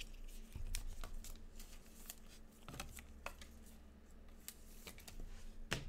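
Trading cards and a clear plastic card holder being handled, giving scattered faint clicks and light rustling, with a sharper click near the end.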